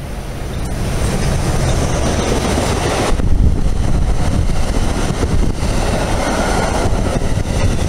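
NJ Transit express train of multilevel coaches passing at speed: a steady rush of wheel and air noise that builds up about a second in as the train arrives and stays loud as the cars go by.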